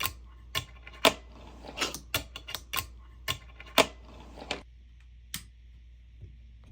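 Fingerboard clacking: a string of sharp, irregular clicks as the little board pops and lands, about fifteen in the first four and a half seconds, then one more a second later, over a faint low hum.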